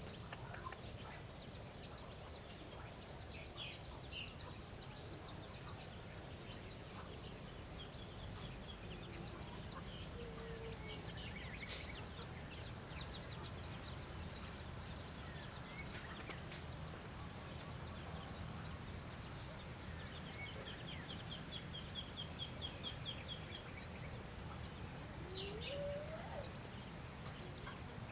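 Quiet outdoor ambience with a steady low background noise and scattered bird chirps, including a fast run of even chirps about three quarters of the way through and a short rising call near the end.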